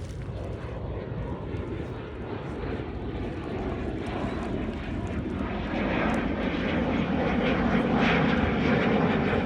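Airplane engine drone passing overhead, growing steadily louder and peaking near the end.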